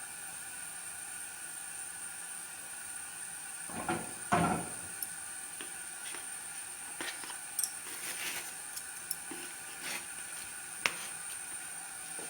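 Scattered light knocks and clatters of kitchen handling over a faint, steady hiss, the loudest two about four seconds in.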